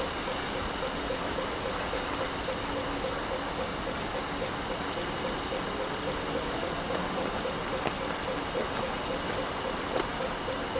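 Standing steam tank locomotive hissing steam steadily, with a faint quick, even pulsing underneath.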